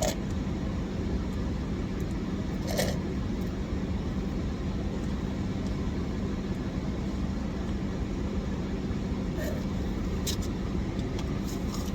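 Steady low hum of an idling car heard inside the cabin, with a constant drone, and a few brief faint clicks.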